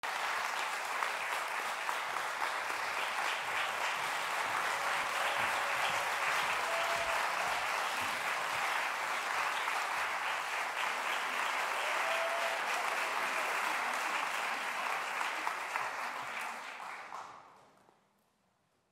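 Concert hall audience applauding steadily, then dying away near the end.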